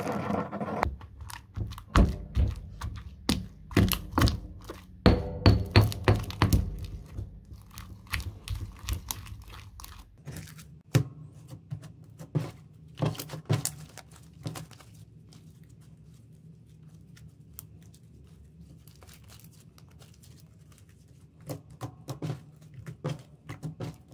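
A stone pestle stirring and knocking in a stone mortar of wet slime mixture gives sharp knocks several times a second for about the first ten seconds. After that comes quieter handling of the slime by hand on a wooden table: scattered soft sticky clicks and pops, with a flurry of them near the end.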